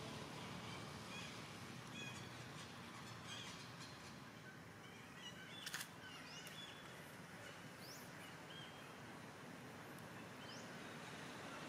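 Faint forest ambience: a steady hiss with scattered short bird chirps, and in the second half a short rising chirp repeated every second or two. One sharp click about six seconds in.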